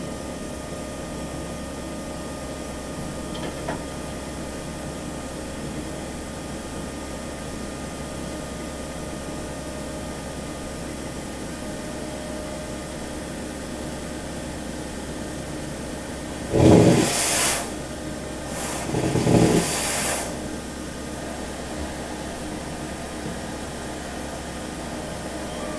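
Steady hum and hiss of a steam train, broken about two-thirds of the way through by two loud bursts of hissing, each lasting about a second and a half.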